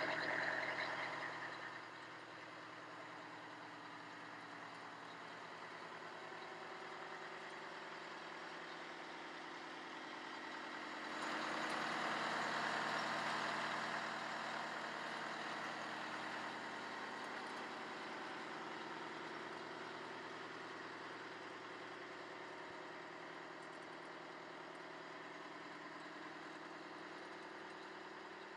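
The Oshkosh M1070 HET's Detroit Diesel 8V92 turbocharged two-stroke V8 diesel idling steadily. It grows louder for a few seconds about eleven seconds in.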